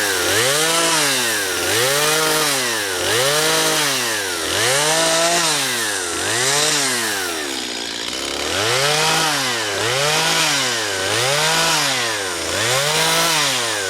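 Chainsaw carving a white oak stump, revving up and falling back over and over, about once every one and a half seconds, with a short break about eight seconds in.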